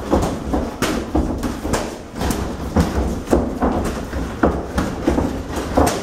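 Boxing gloves smacking and thudding in a sparring exchange: irregular sharp hits, two or three a second.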